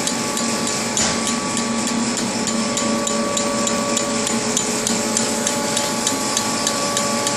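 Drinking-straw production machine running: a steady motor hum with several held tones under a fast, even clicking of about three a second, the rhythm of the cutter chopping the extruded straw tube to length. One slightly louder knock about a second in.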